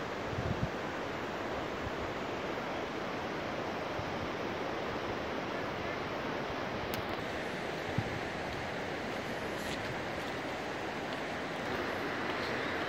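Steady rushing of a fast mountain river, growing a little louder near the end.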